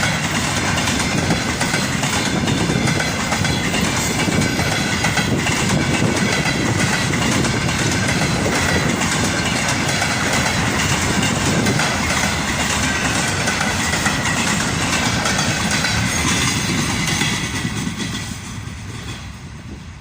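Freight train hauled by a VL80s electric locomotive rolling past, its wagon wheels clattering over the rail joints (clickety-clack). The rolling noise fades away over the last few seconds as the train moves off.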